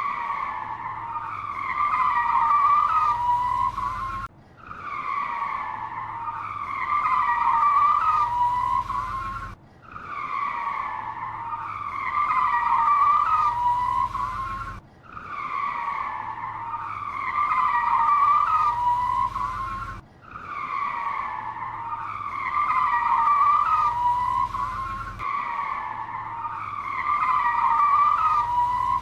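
Car tyres squealing in a long skid, a high screech that wavers in pitch over a low rumble. The same skid of about five seconds repeats over and over, each broken by a brief drop.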